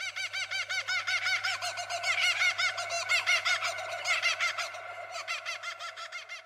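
An outro sound effect: a rapid warbling trill of short rising-and-falling chirps, about eight a second, over a faint low hum. It fades away near the end.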